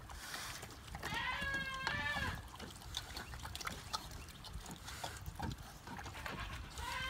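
Pig slurping milk poured from a jug straight into its mouth, with milk splashing onto the straw. High wavering calls come twice about a second in and once more near the end.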